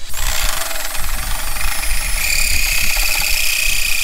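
Cordless drill turning a hole saw that is cutting into a sheet-metal welder panel: a loud, steady grinding screech that starts abruptly, with a high ringing tone from the metal joining in about halfway through.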